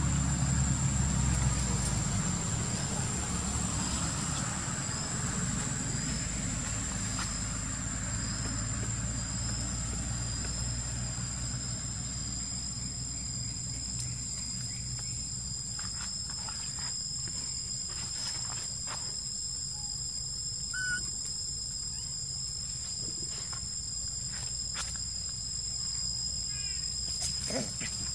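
Insects droning steadily on two high, unchanging pitches, over a low engine rumble that is loudest at the start and fades away during the first ten seconds or so. Later there are a few soft clicks and a couple of brief high chirps.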